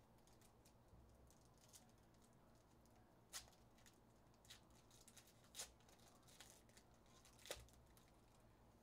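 Faint crinkling and crackling of trading-card pack wrappers being handled and torn open, with three sharper crackles about a third of the way in, past halfway, and near the end.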